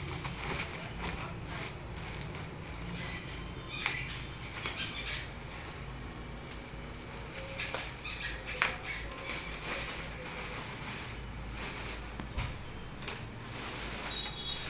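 Packaging being handled: rustling with scattered sharp clicks and knocks as a boxed keyboard is unpacked.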